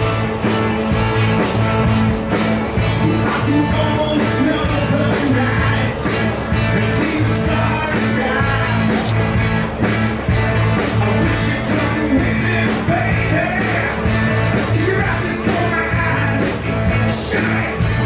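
Rock and roll song with a singer and a steady beat.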